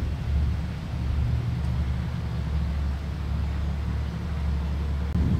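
Jeep Wrangler's engine running steadily at low revs, a low continuous rumble.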